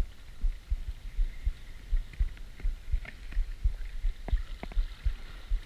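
Irregular low thuds, several a second, with a couple of sharper knocks about four seconds in, from small waves slapping against the hull of a drifting fishing boat.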